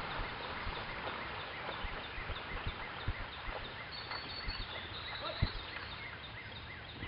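Canoe paddles dipping and pulling through lake water at a fast racing cadence, with splashing and short knocks from the strokes. A faint high chirp repeats about three times a second.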